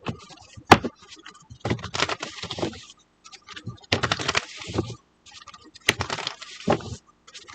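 Tarot cards being shuffled and handled: several short bouts of rustling and flicking with sharp snaps, separated by brief pauses.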